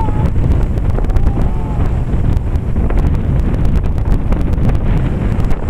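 Wind buffeting the microphone: a loud, steady low rumble, with a few faint short whistling glides and scattered light clicks over it.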